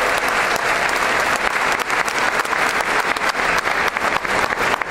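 Audience applauding: a crowd's dense clapping that thins out toward the end, when single claps stand out.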